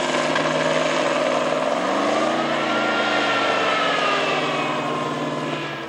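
FV432 armoured personnel carrier's six-cylinder Rolls-Royce K60 multi-fuel engine running under load as the tracked vehicle drives over rough ground. The engine pitch rises about two seconds in and falls back by about four seconds.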